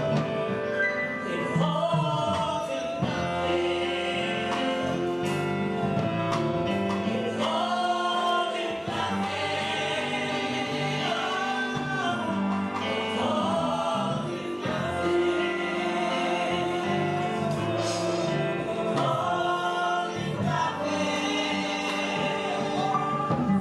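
Gospel song: voices singing a melody over steady instrumental backing.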